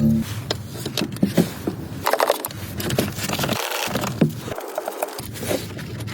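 Irregular clinks, knocks and scraping of hand tools and metal parts being handled during a rear shock absorber replacement.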